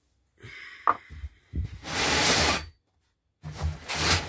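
Close-up handling noise as the camper's seat cushions and lace curtain are moved about: a sharp click about a second in, a loud fabric rustle lasting about a second, then a few soft knocks near the end.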